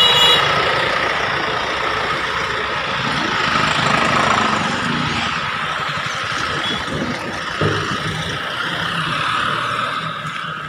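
Street traffic passing, a steady mix of engine and tyre noise from cars and heavier vehicles, swelling about four seconds in and easing off near the end.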